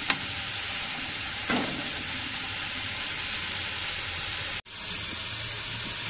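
Chopped onion and tomato sizzling in hot oil in a kadhai, a steady hiss, with a metal spatula knocking against the pan twice in the first couple of seconds. The sound breaks off for an instant about three-quarters of the way through.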